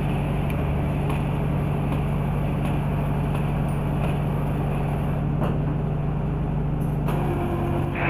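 Hand-held power drill running steadily, spinning a hone inside an engine cylinder bore to polish the bore wall, with a constant motor hum and faint scattered clicks.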